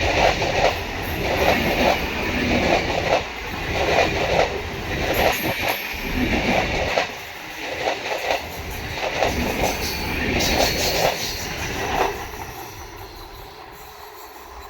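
Indian Railways train passing close by, its wheels clattering with a string of repeated knocks over the rails; about twelve seconds in the sound drops away as the train moves off.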